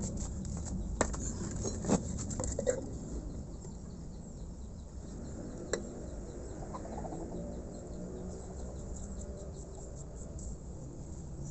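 A few sharp clicks and knocks from hand work on an air compressor head, three in the first three seconds and one more about six seconds in. Faint, evenly repeated bird chirping runs behind them.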